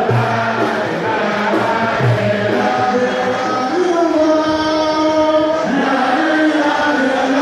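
A group of voices chanting together in long held notes that step up and down in pitch: Islamic devotional chanting.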